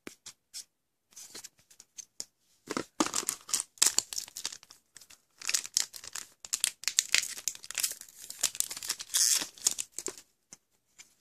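Trading-card booster pack wrapper crinkling and tearing as it is ripped open, in several runs of rustling bursts. The first couple of seconds hold only a few light clicks of cards being handled.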